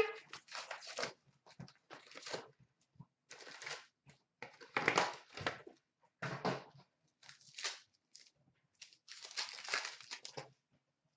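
Trading-card pack wrappers being torn open and crinkled by hand, with cards handled, as a string of short, irregular rustles and rips that stop about a second before the end.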